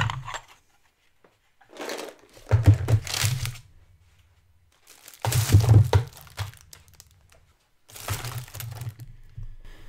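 Plastic bags crinkling and art supplies knocking as they are tipped out and set down on a table, in three bursts of about two seconds each with short silences between.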